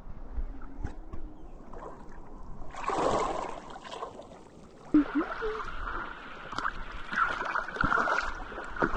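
Water splashing and washing, setting in about three seconds in and carrying on unevenly.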